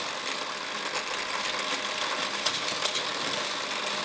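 Motorized booster of a Fast Lane toy race track whirring steadily, with small toy cars clicking and rattling along the plastic track.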